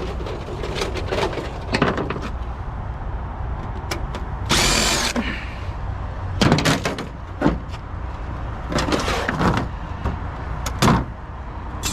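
A cordless power driver whirring briefly about four and a half seconds in, among repeated clanks, knocks and rattles of metal printer parts being handled and pried apart.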